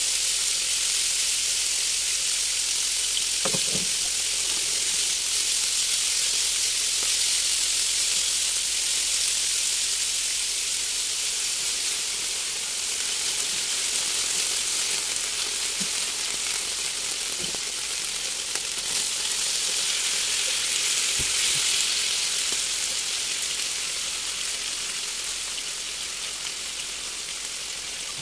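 Food frying in a frying pan, a steady sizzle with a few light knocks of a utensil against the pan. The sizzle eases slightly near the end.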